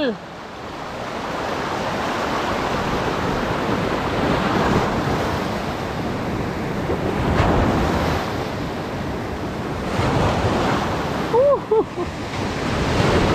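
Sea surf breaking and washing on the shore, swelling every few seconds, with wind buffeting the microphone. A voice calls out briefly near the end.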